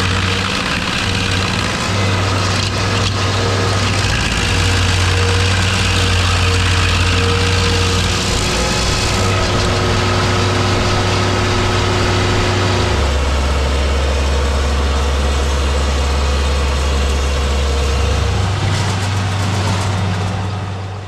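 A heavy engine running steadily. It drops to a lower speed about 13 seconds in and speeds back up about 18 seconds in.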